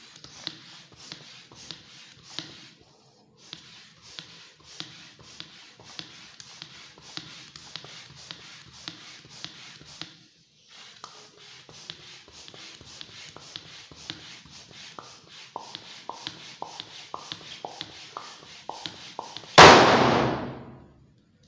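A blue latex balloon being blown up with a hand pump: a long run of fast, even strokes with air hiss, pausing briefly about halfway. Near the end the balloon bursts with a loud pop that rings out for about a second.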